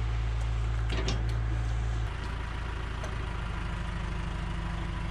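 Heavy machine's engine idling steadily, its low hum dropping a little in level and pitch about two seconds in, with a couple of faint clicks over it.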